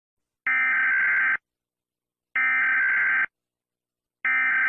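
Emergency alert system alarm tone: a steady electronic beep, just under a second long, repeating about every two seconds, three times.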